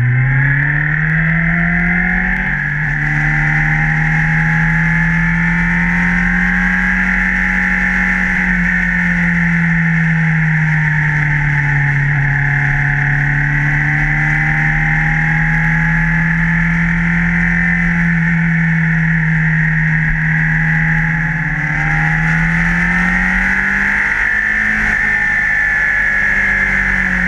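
Kawasaki motorcycle engine heard from the bike itself while riding: it revs up at the start, drops in pitch at a gear change about two and a half seconds in, then runs at a steady cruise with slow rises and falls in revs, climbing again a little over twenty seconds in.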